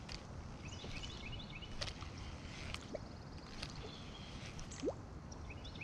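Quiet pond-side ambience: a low wind rumble on the microphone, a few light clicks from handling a baitcasting reel, and faint chirping twice, near the start and again at the end.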